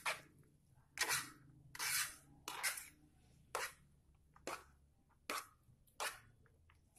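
Metal fork scraping against a plate while stirring fried instant noodles, in about eight short strokes a little more than one a second.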